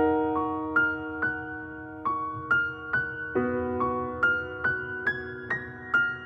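Instrumental intro of a slow, sad song: a sustained piano chord struck at the start, then a melody of single notes roughly twice a second over held chords.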